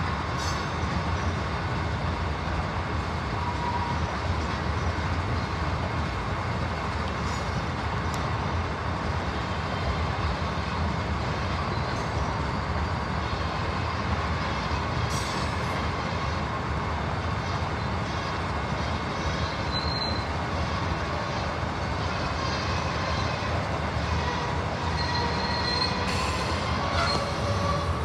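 Union Pacific diesel locomotives and train rumbling steadily as the train backs slowly through the yard, with faint wheel squeals about 4 s in and again near the end.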